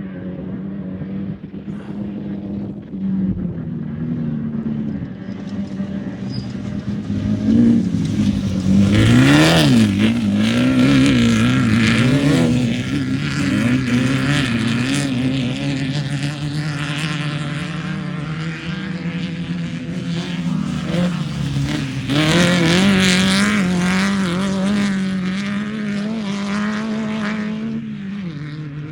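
Off-road race vehicle engine running hard and revving up and down, its pitch repeatedly rising and falling. It grows loud about eight seconds in and again about twenty-two seconds in.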